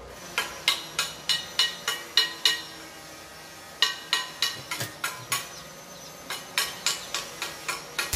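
Sharp metallic ticks or taps, about three a second, in three runs with short pauses between them.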